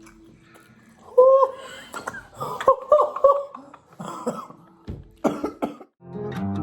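A person coughing in a series of hoarse, voiced fits, then a few short sharp coughs, as if choking on the heat of very hot-sauced chicken wings. Guitar music comes in near the end.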